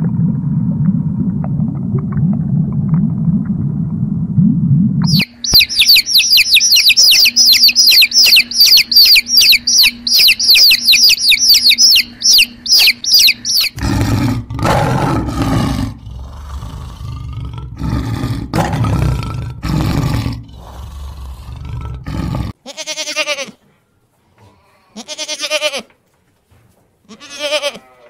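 A sequence of different animal calls: a low rumbling call, then rapid high-pitched chirping for about eight seconds, then loud harsh low calls, and over the last few seconds goat bleats with a wavering pitch.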